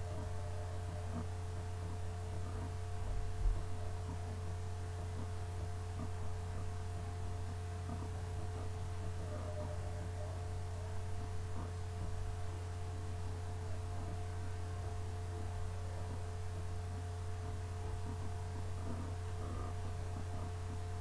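Steady low electrical hum with two faint steady higher tones over it, and a soft low thump about three and a half seconds in.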